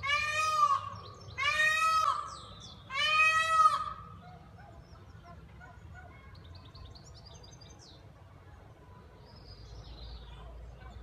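An animal calling loudly three times in quick succession, each call a drawn-out, nasal cry of nearly a second. Faint bird chirps follow after a few seconds.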